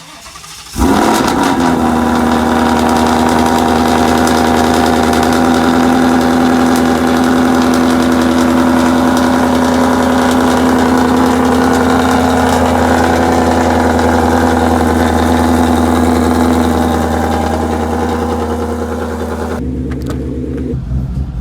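Cold start of a 2018 Ford Mustang GT's 5.0 L V8 through Stainless Power long-tube headers and a Ford Performance by Borla cat-back exhaust. The starter cranks briefly and the engine catches about a second in with a loud burst. It holds a steady high fast idle, then eases down and drops to a lower idle near the end.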